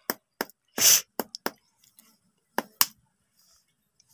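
Shell of a hard-boiled egg cracking and being peeled off by hand: a run of sharp, irregular clicks and snaps, with a louder crunch about a second in.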